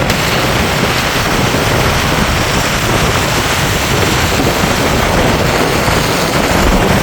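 Heavy rain falling: a loud, steady noise with no breaks.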